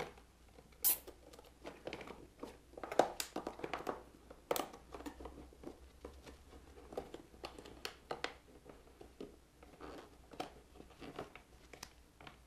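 Gloved hands fastening wiring to a motorcycle frame with plastic cable ties: irregular small clicks and rustles of plastic and cable, with a few sharper snaps.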